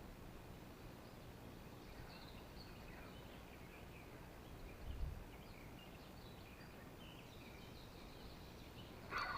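Faint birdsong, with scattered high chirps over a steady outdoor hiss. There is a low thump about five seconds in and a short sharp knock near the end.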